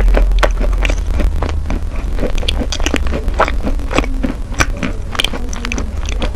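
Close-up chewing of soft wet chalk: irregular moist crunches and crackles, several a second. A steady low hum runs underneath.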